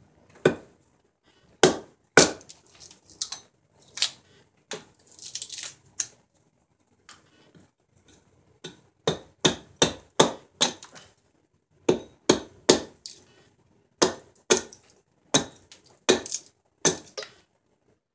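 Hatchet chopping into a silver birch blank held upright on a wooden chopping block. There are about twenty sharp chops, spaced out at first, then in quicker runs of about two a second from halfway on. A short rustle comes about five seconds in.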